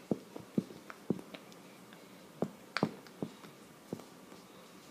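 A stylus tip tapping against a tablet's touchscreen while handwriting: a dozen or so light, irregular taps.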